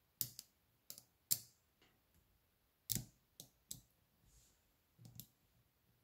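Small white-coated magnetic balls snapping onto a cylinder of magnetic balls: about eight sharp clicks at uneven intervals, the loudest near the start and around the middle.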